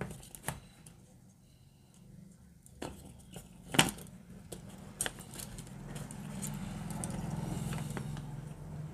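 Small plastic clicks and rustles of cable ties being threaded through the plastic frames of computer cooling fans and wires being handled, with one sharp, louder click about four seconds in. A low hum swells in the second half.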